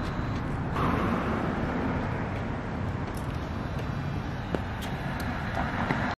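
Steady street traffic noise from passing cars, with a few faint clicks. The sound cuts off abruptly at the end.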